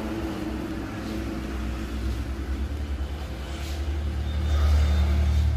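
A vehicle engine's low rumble. A steady low tone in it fades out about a second in, and the rumble swells about four seconds in.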